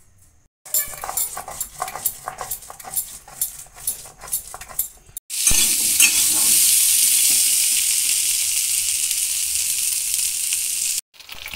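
Potato chunks frying in hot oil in an aluminium pan: from about five seconds in, a steady, loud sizzle that stops abruptly near the end. Before it, a run of irregular clicks and scrapes.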